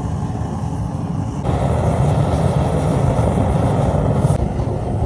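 Homemade gas forge burner running, a steady rushing noise. About one and a half seconds in it becomes louder and hissier, then drops back to the fainter rush near the end.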